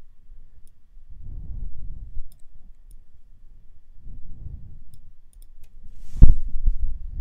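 Faint computer-mouse clicks over patches of low rumbling noise, with one loud sharp thump about six seconds in.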